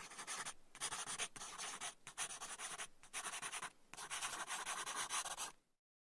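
Pencil scratching on paper in a series of quick writing strokes, about six stretches with short breaks between them, stopping shortly before the end.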